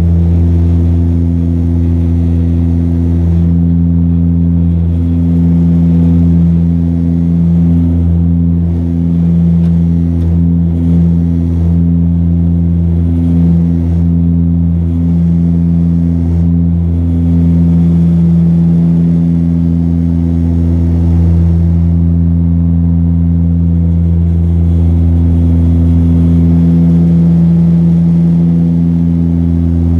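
A Saab 340's twin turboprops running steadily. The propellers make a loud, low drone with a wavering, beating tone in it.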